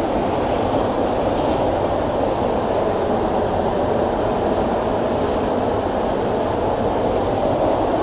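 Steady rush of a fast-flowing stream cascading over boulders close by.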